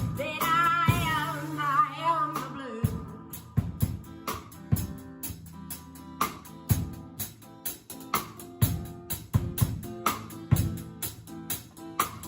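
A song played live: a woman singing over guitar and drums, her sung line ending about three seconds in, then an instrumental passage with a steady drum beat.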